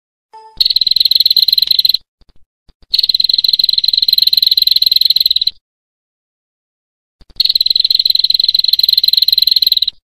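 A high, rapid buzzing trill given in three bouts, the first about a second and a half long and the next two about two and a half seconds each, with short silent gaps between. It is an insect-like rattling call of the kind used as songbird training material.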